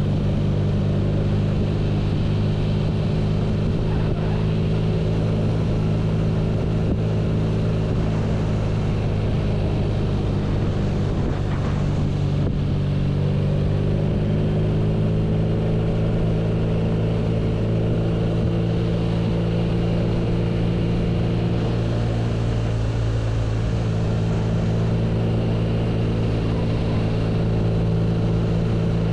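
BMW R nineT's air/oil-cooled boxer twin engine running at a steady engine speed, with small rises and dips in pitch around the middle.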